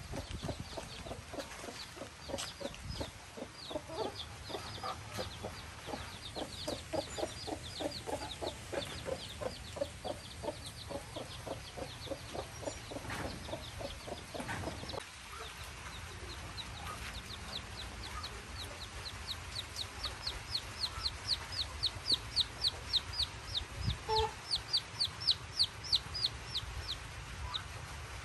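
A hen clucking in a quick, even run of short clucks, with chicks peeping high and fast around her. The clucking stops about halfway. The chick peeping grows louder and more insistent near the end.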